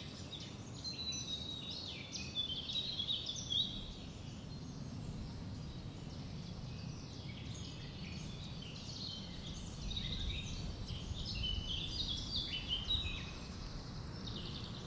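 Small birds chirping and singing in two bouts of quick, high notes, over a steady low outdoor rumble.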